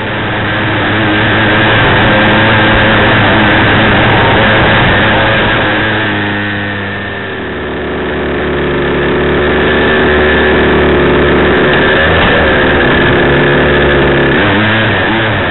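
Engine of a 1:6 scale FG Mitsubishi Pajero RC car heard close up from its onboard camera, running at a steady pitch; about seven seconds in it drops lower and quieter, then picks up again, with a short rise and fall in pitch near the end.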